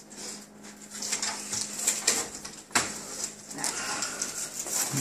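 Handling noises from a flat-screen TV and its cardboard box and packing: rustling and scraping, with a sharp knock about three seconds in.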